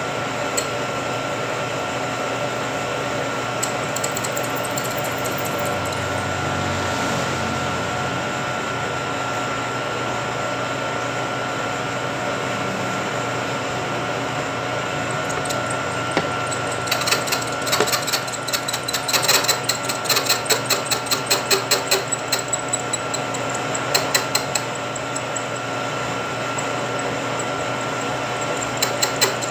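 Vertical milling machine running steadily with a constant hum as its end mill cuts a keyway into a metal impeller. A little past the middle comes a run of sharp, regular ticks, about two or three a second, for several seconds, and a few more near the end.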